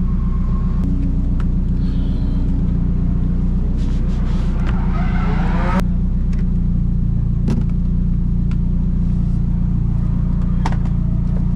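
A car driving along, with a steady low engine and road drone. About five seconds in a rising whine climbs and then cuts off suddenly.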